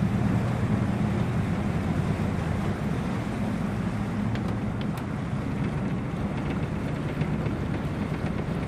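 Small boat's outboard motor running steadily under way, with the rush of water and wind.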